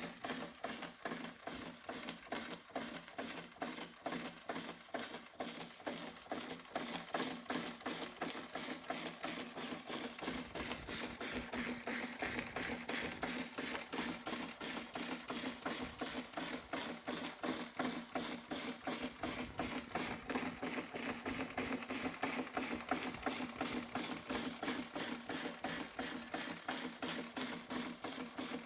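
Märklin 4112 toy steam engine running steadily under steam from its spirit burner, a fast even chuffing of about four to five beats a second over a steady hum. It gets a little louder about seven seconds in.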